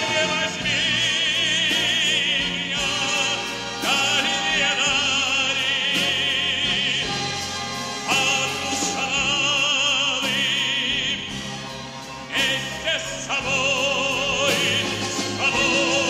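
Background music in an operatic style: a high voice holding long notes with a wide vibrato over steady accompaniment.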